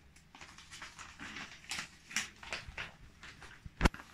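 Paper rustling as the pages of a hand-made paper book are handled and turned, in a series of soft swishes, with one sharp click near the end.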